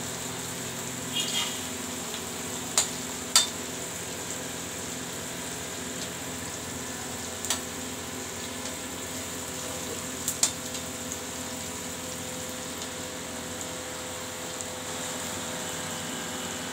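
Chopped onions sizzling steadily in hot oil in a kadhai, frying until light yellow to light brown. A metal ladle stirring them knocks against the pan several times.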